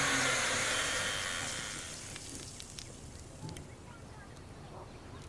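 Canister vacuum cleaner motor winding down after being switched off, its whine falling in pitch and fading away over about two seconds. After that come faint ticks and a few small high squeaks.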